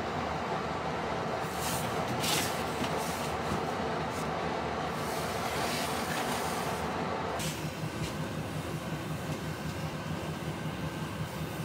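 Steady mechanical rumble and hiss from running machinery, which changes tone about seven seconds in, becoming lower and more rumbling.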